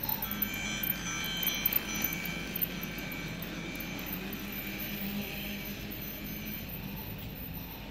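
Battery-powered toy train running past on plastic track: a steady motor hum with a few sharp clicks from the wheels on the track, and a high ringing, chime-like sound that is strongest in the first three seconds and fades out.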